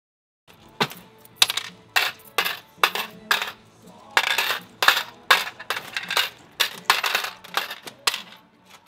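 Metal coins clinking as they are dropped and pushed about on a game table. A long irregular run of sharp clinks, several a second, starts about half a second in.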